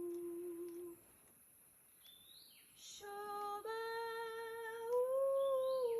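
A woman singing long, wordless held notes in a pure, humming tone, light-language chanting. One note ends about a second in; after a pause a new note starts about three seconds in, steps up, glides higher and settles back.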